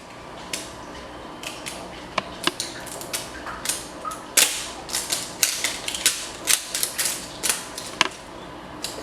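Plastic toy packaging crinkling and crackling in hands as a layer is peeled open, a string of irregular sharp clicks that grows busier after about four seconds.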